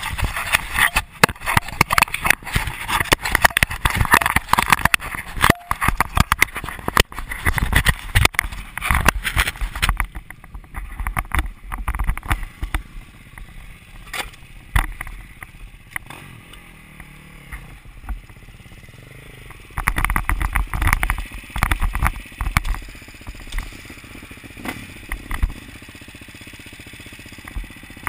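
Close-up handling noise on a small action camera: dense knocks, scrapes and rustling over the first ten seconds as it is gripped and fitted to a dirt bike, then quieter with scattered bumps and another louder run of knocks about twenty seconds in.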